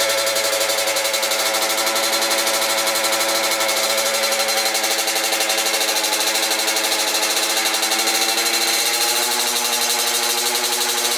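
Honda CR85's freshly rebuilt 85cc two-stroke single-cylinder engine idling steadily, running through its first heat cycle with the idle set too high. The pitch dips slightly about nine seconds in.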